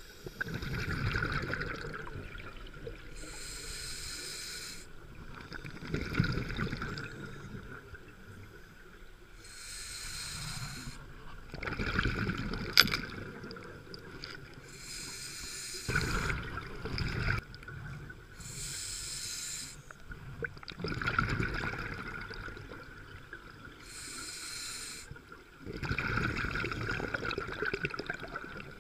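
Scuba diver breathing through a regulator: a hiss on each inhale, then a gurgling rush of exhaled bubbles, repeating about every five seconds for six breaths. A single sharp click comes near the middle.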